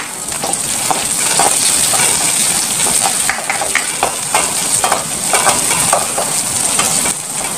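Sliced onions sizzling in hot oil in a wide metal pan, with a steady hiss. A spatula stirs them, scraping and tapping irregularly against the pan.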